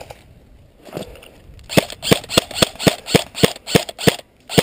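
Airsoft rifle firing a rapid string of single shots, sharp clicks about three or four a second, starting a little under two seconds in.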